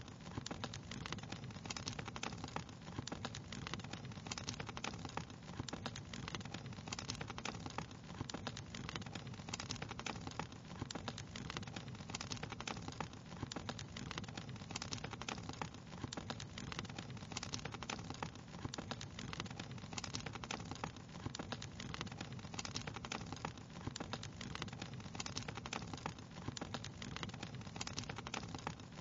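Wood fire crackling steadily, with many small irregular pops and snaps over a constant low noise of the burning.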